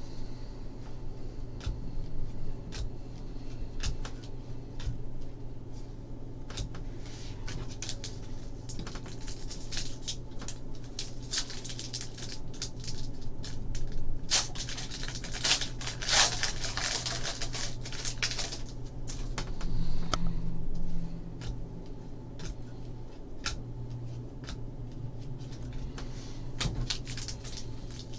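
Trading cards handled and flicked through with light clicks, then a foil card pack crinkling and tearing as it is opened, loudest about halfway through.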